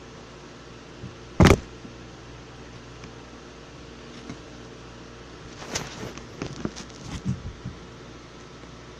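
A single sharp knock, then a scatter of light clicks and taps from objects being handled, over a steady low hum.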